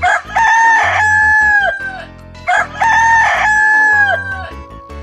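A rooster crowing twice, cock-a-doodle-doo, each crow ending in a falling note, over light background music.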